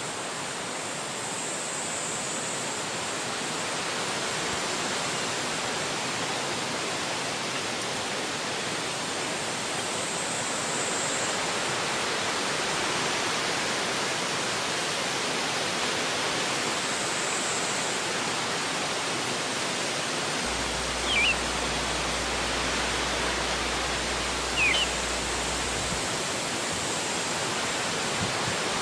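Steady rain falling, an even hiss. Two brief high chirps about three and a half seconds apart in the second half.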